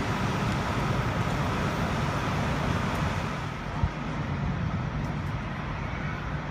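Steady motor-vehicle noise: a low rumble under an even hiss, with one short knock just before four seconds in.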